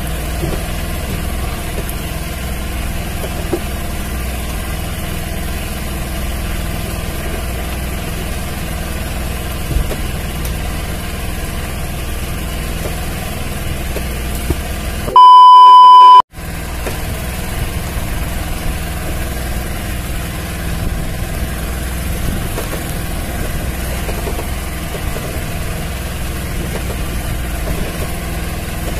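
Boat engine running steadily at idle, a low even hum. About halfway through, a loud, high, steady bleep lasting just over a second replaces everything else, an edited-in censor bleep.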